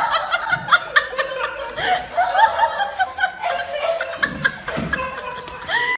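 People laughing: a long run of short, high-pitched ha-ha sounds, one after another.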